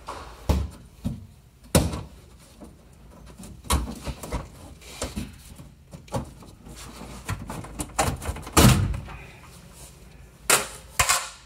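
A handful of separate knocks and clunks as a car battery and its hold-down are worked loose and lifted out of the battery box, the loudest clunk about three-quarters of the way in and two more close together near the end.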